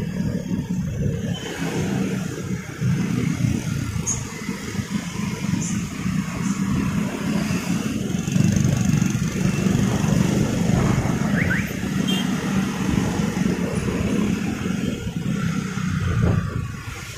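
Motorcycle engine running in slow, dense traffic, its note rising and falling with the throttle, among the engines of nearby scooters and cars.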